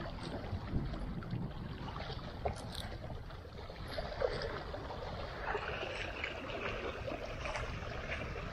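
Small wind-driven waves lapping and splashing against shoreline rocks, with wind rumbling on the microphone.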